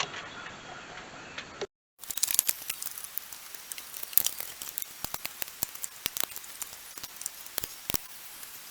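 Rummaging through a pile of old parts: rapid small clicks, rattles and crinkling, starting after a brief dropout about two seconds in.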